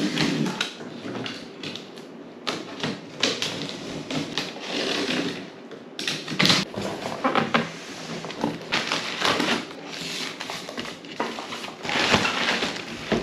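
Utility knife slitting packing tape on a cardboard box, a run of scratchy rasps and sharp clicks as the blade and tape drag, with the cardboard flaps scraping and rustling as they are pulled open. Near the end, plastic air-cushion packing crinkles as it is handled.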